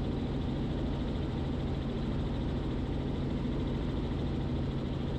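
Robinson R44 Clipper II helicopter in cruise flight: a steady, even drone of engine and rotor with a low hum.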